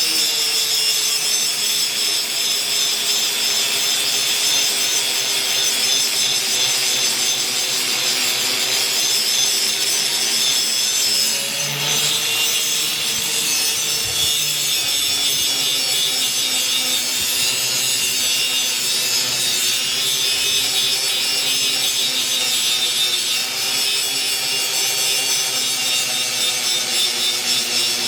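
Axe blade being sharpened on a power grinder: a steady, unbroken grinding hiss of steel on the abrasive over the hum of the motor, whose pitch sags and recovers slightly as the blade is pressed in.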